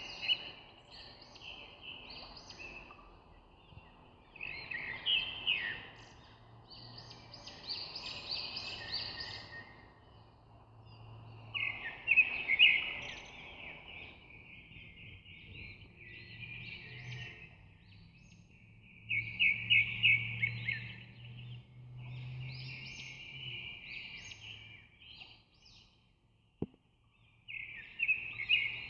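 Birds chirping and singing in repeated bursts of rapid trills over a faint low hum, with one sharp click near the end.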